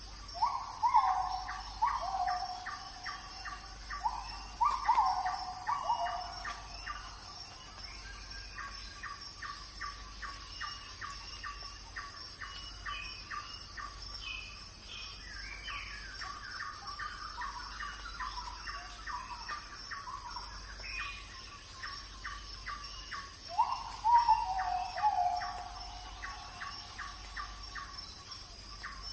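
A kitten mewing in short, falling calls, in two clusters near the start and one more near the end, over a steady background of rapid repeated chirping.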